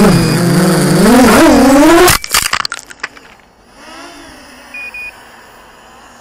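FPV quadcopter motors whining loudly, their pitch swooping up and down with the throttle. About two seconds in the quad crashes: the whine cuts off and the frame clatters and tumbles across gravel. Then another quad's motors whine faintly overhead, with two short beeps near the end.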